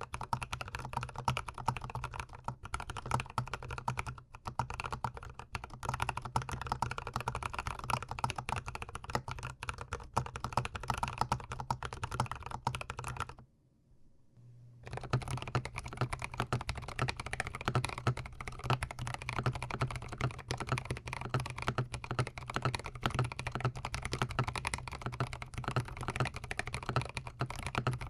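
Fast typing on a GMMK Pro gasket-mount mechanical keyboard, close-miked: a dense stream of key clacks. It breaks off for about a second and a half near the middle, then goes on.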